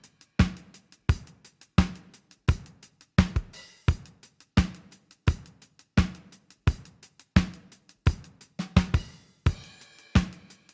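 Drum kit groove at a steady moderate tempo: strong kick and snare hits about every 0.7 seconds, with hi-hat and cymbal strokes between them.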